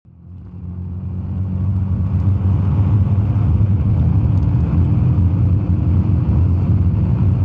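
Camaro ZL1 prototype's supercharged 6.2-litre V8 running hard at speed, heard from inside the cabin as a steady low rumble that fades in over about the first two seconds.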